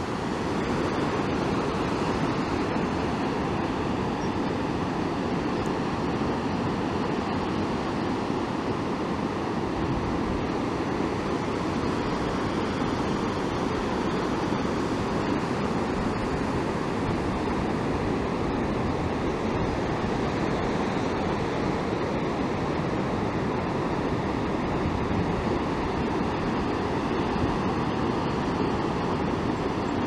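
Steady roar of ocean surf, heavy waves breaking on the shore below a cliff, heard as one even rushing noise that does not let up.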